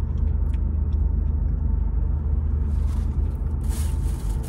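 Steady low rumble of a car engine idling, heard from inside the cabin, with a few faint clicks of chewing and a brief hiss near the end.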